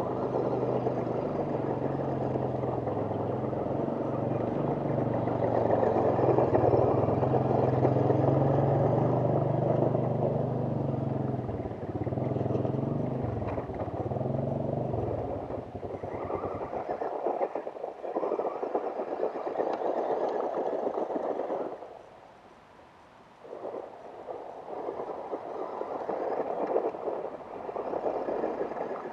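Battery-powered toy RC car whirring in bursts as it drives about on gravel, stopping briefly a little over two-thirds of the way through. A small engine runs steadily under it for the first half or so, then shuts off.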